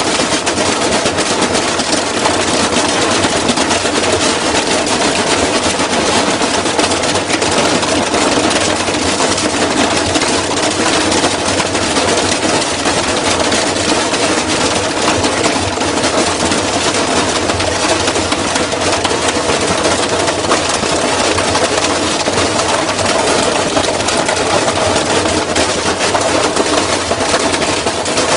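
Washing machine running with bricks and metal pieces loose in the drum: a loud, steady clatter of rapid knocks over the machine's running rumble.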